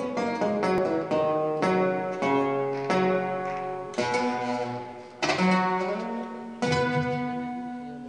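Acoustic guitar playing an instrumental introduction: plucked chords struck every second or so, each ringing out and fading before the next.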